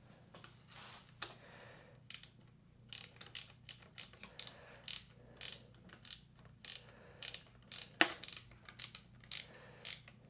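Ratchet wrench being worked back and forth, a short burst of pawl clicks on each stroke, about two strokes a second from about three seconds in, with one sharper click about eight seconds in.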